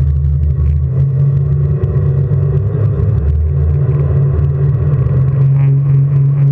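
Jet boat engine running loud and steady, a low drone whose pitch shifts slightly a couple of times.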